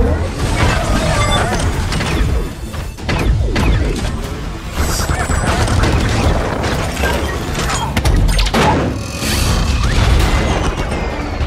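Sci-fi robot transformation sound effects over music: mechanical shifting of metal parts with repeated metal impacts and booms.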